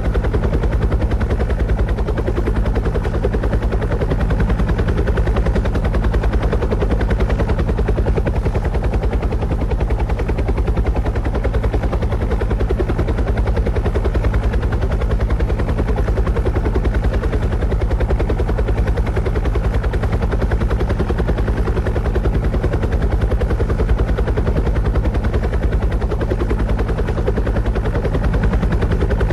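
Rotor blades beating in a rapid, even pulse over a steady low hum, unchanging throughout.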